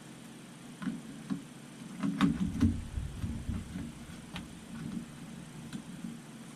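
Handling of small plastic drone batteries and charging parts: scattered light clicks and knocks, with a louder, deeper bump and rustle about two seconds in.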